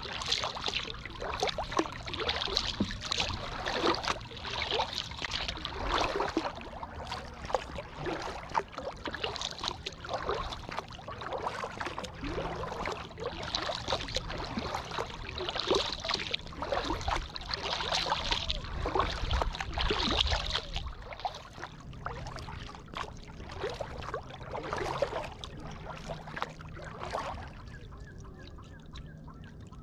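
Kayak paddle blades dipping and pulling through the water in a steady rhythm of strokes, with water trickling and dripping off the blades between them. The splashing eases off near the end.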